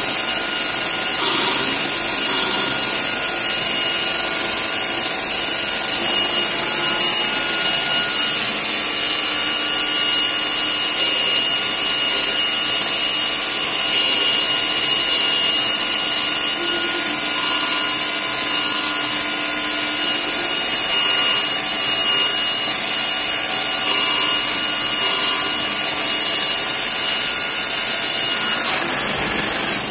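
Morbidelli Author 427S CNC router machining a wood panel: the spindle runs with a steady high whine over a loud, even machine noise. The whine stops near the end.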